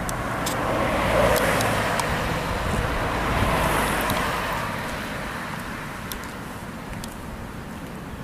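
A vehicle passing: a broad rushing noise that swells over the first second, is loudest for a few seconds and fades away over the second half, with a few faint clicks scattered through it.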